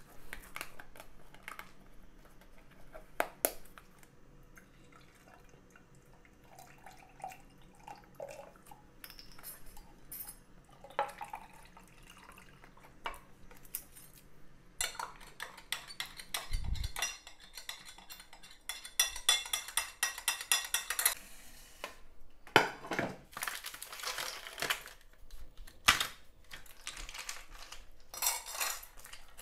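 Kitchen utensils clinking, knocking and scraping against dishes, in irregular spells with longer stretches of scraping about halfway through and again near the end.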